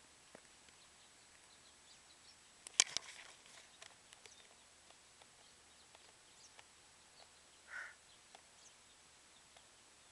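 Quiet outdoor background under a tree, with a quick cluster of sharp clicks about three seconds in and a single short chirp a couple of seconds before the end.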